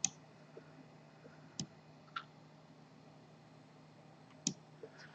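Four short, sharp clicks of a computer mouse, spaced unevenly over about four and a half seconds, above a faint steady hum.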